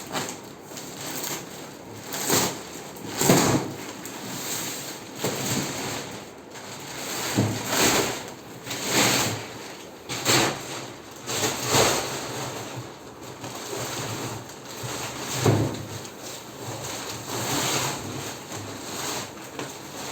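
Plastic packaging rustling and crinkling as a mattress is unwrapped, in irregular swishes with a few dull bumps.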